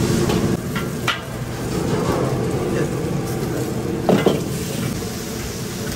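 Chicken and vegetables sizzling in a hot wok while a metal ladle stirs and tosses them. Sharp clanks of the ladle against the wok come about a second in and again near four seconds.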